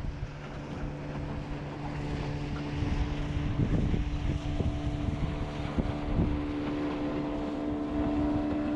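Boat's outboard motor running steadily at a constant pitch, with wind on the microphone and a few short knocks.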